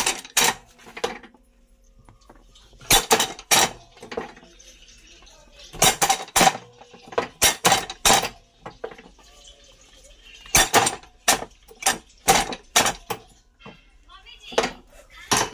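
Sharp metallic clanks and knocks from a clay diya die press and its steel moulds, coming in quick clusters every two to three seconds as the press stamps and the die cups are handled.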